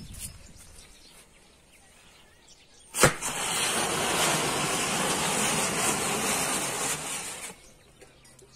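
Standard Fireworks Gold Rush ground firework, laid on its side, going off: a sharp crack about three seconds in, then a loud, steady hiss of spraying sparks for about four and a half seconds before it dies away.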